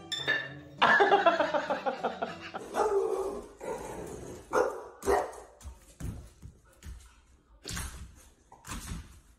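A dog barking and vocalizing: a drawn-out wavering call over the first few seconds, then single short barks about a second apart in the second half.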